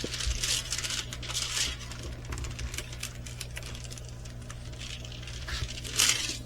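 Rustling and crinkling of a diamond painting canvas being handled, louder in the first couple of seconds and again near the end, over a low steady hum.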